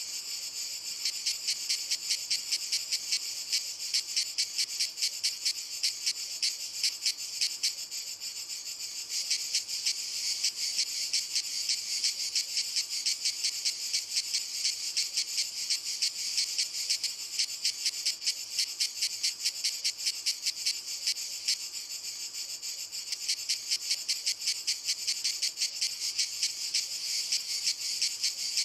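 Cicadas singing: a loud, high buzzing song pulsing in a rapid, even rhythm, swelling about a second in and easing briefly about three-quarters through.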